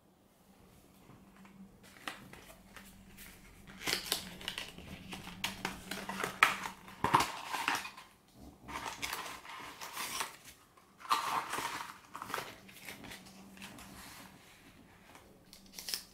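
Phone-box packaging being handled and unpacked: a stiff black cardboard insert and the wrapped charging cable rustle, crinkle and tap in irregular bursts. The loudest stretches come about a third of the way in and again past the middle.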